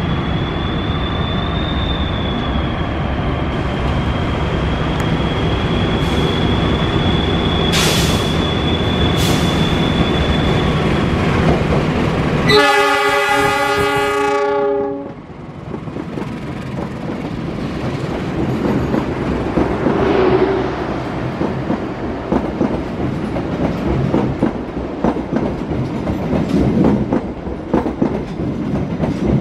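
KAI CC206 diesel-electric locomotive passing at close range, its engine rumbling under a steady high squeal, then sounding its horn in one blast of about two and a half seconds near the middle. After a sudden change, an electric commuter train passes with its wheels clattering over the rail joints.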